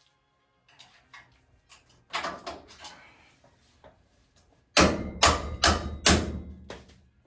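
Metal parts knocking and clanking during suspension work: light clicks and a knock, then near the end a run of four or five heavy strikes in quick succession, the loudest sounds here.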